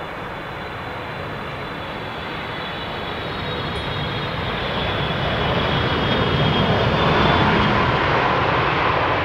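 Boeing 777 freighter's GE90 turbofan engines on a landing pass: a steady jet rumble with a faint high fan whine, growing louder over the first seven seconds or so.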